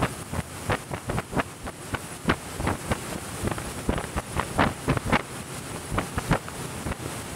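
Wind buffeting the microphone in quick, irregular thumps over a steady rush of wind and water.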